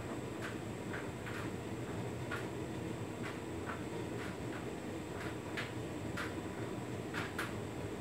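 Hotpoint Ultima S-Line washer dryer running a drying cycle: a steady motor and fan hum as the drum turns, with irregular light taps and clicks, one or two a second, as the tumbling load drops inside the drum.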